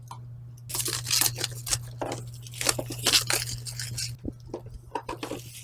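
Plastic shrink wrap crinkling and tearing as it is pulled off a cardboard keyboard box, in a run of rustling crackles with a short lull about four seconds in.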